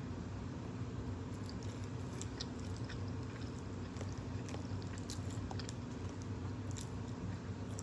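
A person chewing food with scattered small wet mouth clicks, over a steady low hum in the room.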